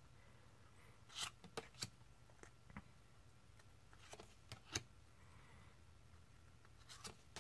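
Glossy laminated tarot cards handled one at a time: a series of faint, soft clicks and slides of cardstock, irregularly spaced, over a very quiet background.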